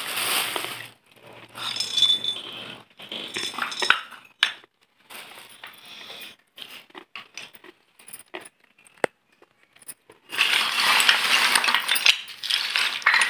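Terracotta clay pots and broken clay shards clinking and scraping against each other as they are moved about in a pile by hand. Short bursts of rattling give way to scattered sharp clicks in the middle, then a longer, denser rattle near the end.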